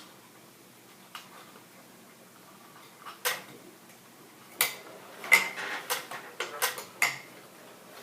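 Scattered clicks and light metallic knocks from wires and fittings being handled and tucked into a ceiling fan's metal housing. There is a single click about a second in and another near three seconds, then a busier run of sharp clicks in the second half.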